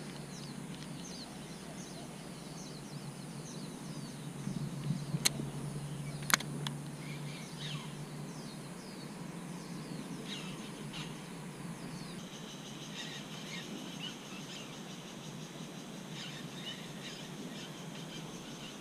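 Outdoor pond ambience of many short bird chirps, growing denser about two thirds of the way in, over a low steady hum and a faint high whine that stops partway. Two sharp clicks sound about five and six seconds in.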